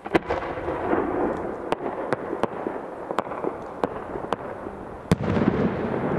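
Aerial fireworks shells going off in a string of sharp bangs over a rolling, echoing rumble. A loud bang opens it and another strong one comes about five seconds in.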